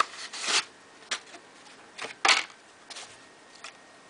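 A cardboard packaging strip scraping and rustling as it is slid off a neoprene iPad sleeve. It comes as about five short scrapes, the loudest a little past the middle.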